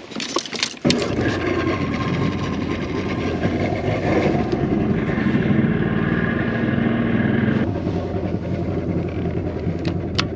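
Jet-drive outboard motor running the bass boat under way, starting up sharply about a second in and easing off about three quarters through.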